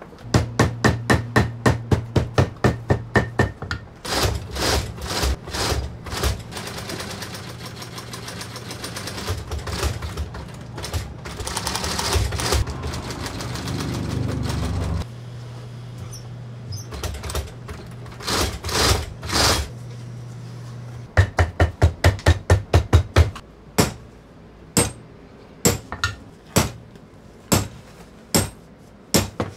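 Shoemaker's hammer tapping repeatedly on leather, in quick runs of about four strikes a second with pauses between, over a steady low hum; a few seconds of denser, continuous noise come in the middle.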